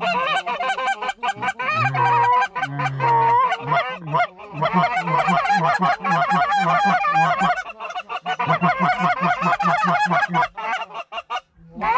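Hunters' Canada goose calls blown hard and fast, a steady run of honks and clucks from several callers at once, working a flock over the decoys. The calling breaks briefly about four seconds in and falls away near the end.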